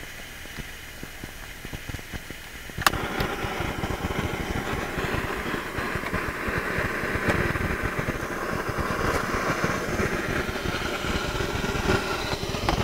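Jetboil backpacking stove's gas burner being lit: a faint gas hiss, a sharp click as it catches about three seconds in, then the burner running with a steady loud rushing noise while it heats the water.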